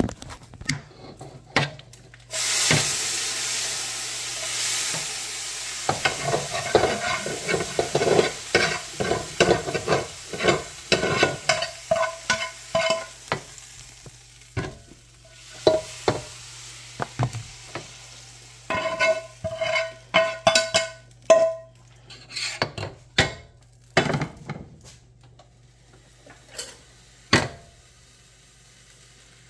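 Chorizo sizzling in hot fat for a few seconds, then a utensil knocking against a metal pot again and again as cooked beans are mashed and stirred, some strikes leaving a short ringing tone. The knocks thin out near the end.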